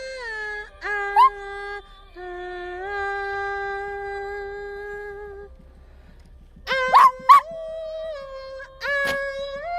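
Shih Tzu howling along to a song, in drawn-out held notes of a second or more with small bends in pitch and a pause in the middle. About seven seconds in come two short, sharp cries, the loudest sounds here.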